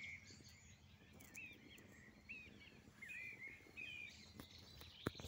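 Faint outdoor bird song: a scattering of short, hooked chirps every second or so, with a single sharp click near the end.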